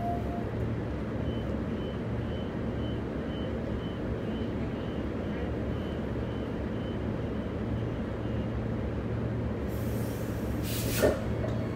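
Steady low hum inside a Bombardier B-series electric train running through the city tunnel section. Near the end comes a short hiss that ends in a sharp click.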